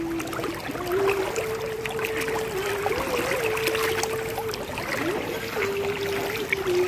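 Floodwater sloshing and splashing as someone moves through it, with small irregular splashes. Over it runs one steady humming tone that steps up and down in pitch, with a short wobble about three seconds in and a quick rise about five seconds in.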